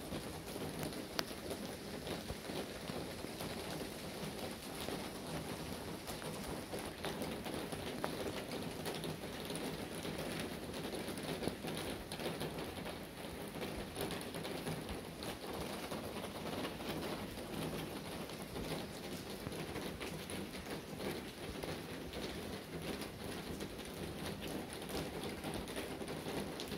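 Steady rain, a dense even patter with many small drop clicks.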